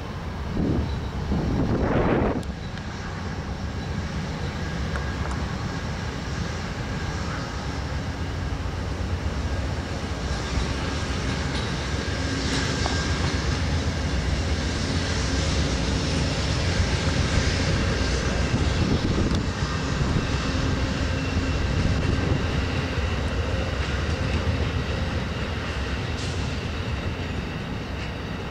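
Amtrak GE P42DC diesel locomotives running past at low speed with a steady engine rumble, followed by the passenger cars rolling on the rails. There are two short gusts of wind on the microphone near the start.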